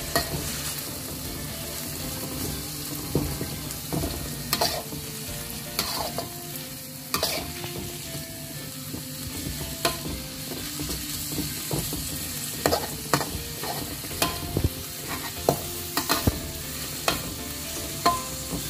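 Sliced torch ginger, chilies, shallots and tomato sizzling in hot oil in a wok while a spatula stirs and scrapes them. A steady hiss runs throughout, broken by frequent sharp clicks and scrapes of the spatula against the pan.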